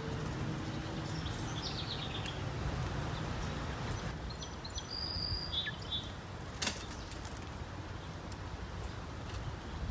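Outdoor ambience: a steady low rumble with short high bird chirps now and then, a faint fast high ticking, and one sharp click about two-thirds of the way through.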